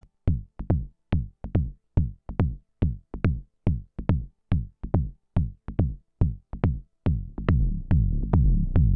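Moog DFAM analog drum synthesizer playing a sequenced pattern: clicky percussive hits whose pitch drops quickly into the bass, falling in steady pairs a little under a second apart. About seven seconds in, a sustained low synthesizer drone from the patched Subharmonicon and Mavis comes in and swells louder under the hits.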